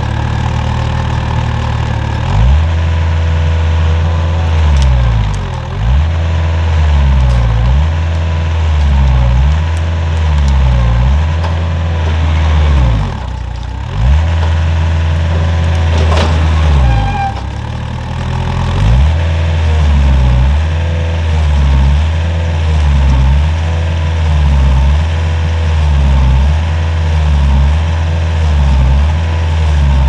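Diesel engine of a compact track loader running under hydraulic load, its speed sagging and recovering over and over as the machine pushes and shakes trees. A sharp crack stands out about sixteen seconds in.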